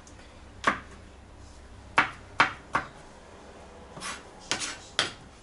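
Kitchen knife slicing champignon mushrooms on a cutting board: about eight sharp knocks of the blade hitting the board, irregularly spaced, with three close together around two seconds in and another cluster near the end.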